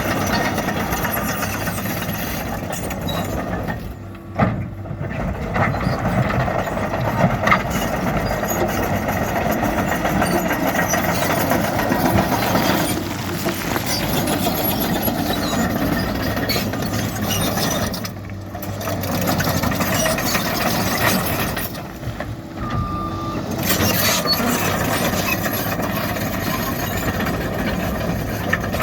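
Heavy diesel earthmoving machinery running and working, a continuous engine rumble that drops away briefly a few times, with a couple of sharp knocks early on.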